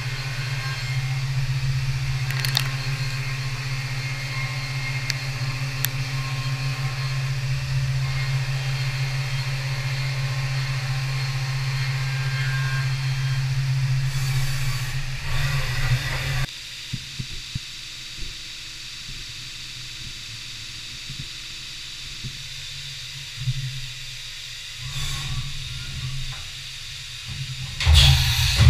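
CNC milling machine running a cut with flood coolant spraying: a steady hum and hiss. About halfway through it cuts off abruptly, leaving a quieter background with a few short knocks and rattles near the end.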